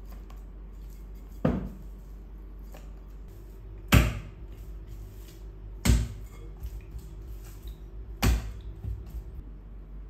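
Bread dough of bread and dark rye flour being stretched and folded by hand in a glass bowl: four heavy slaps as the dough is dropped back into the bowl, with lighter clicks and handling noises between.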